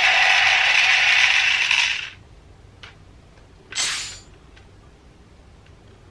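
Bandai DX Drill Crusher toy in blade mode with its trigger held: the motor spins the drill while the toy plays its electronic attack sound, a loud hissing whirr that stops abruptly about two seconds in. A faint click follows, then a short rush of noise about four seconds in.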